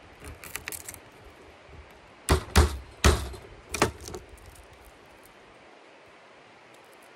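Garlic cloves being crushed: a few light clicks, then four sharp knocks in quick succession, the loudest about two and a half seconds in.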